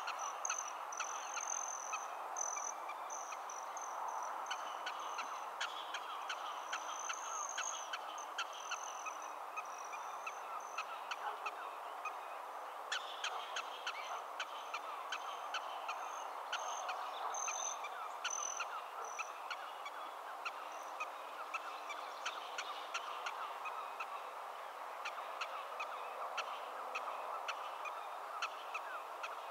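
Black-tailed prairie dogs barking across the colony: a continual run of short, sharp chirp-like calls over a steady hiss. A thin, high repeated note runs alongside them and stops about two-thirds of the way through.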